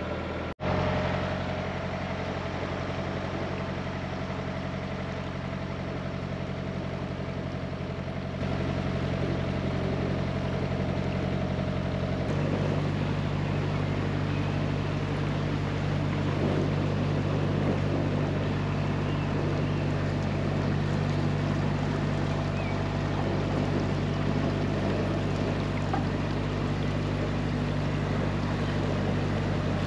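A narrowboat's diesel engine running steadily while cruising, a low, even note whose pitch shifts about twelve seconds in, with a brief dropout near the start.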